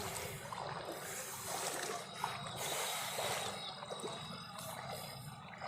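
Steady water noise from floodwater covering a street, with faint splashes and trickling.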